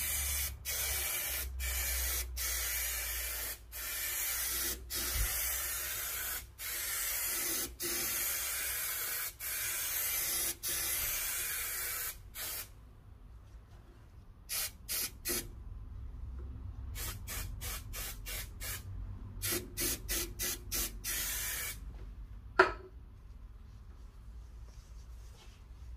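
Spray adhesive hissing from the nozzle in long passes, broken by brief gaps about once a second for the first dozen seconds. After a quieter spell comes a run of shorter bursts. This is glue being laid in straight, overlapping lines to coat a van door panel before a fabric wrap goes on. A single sharp click comes near the end.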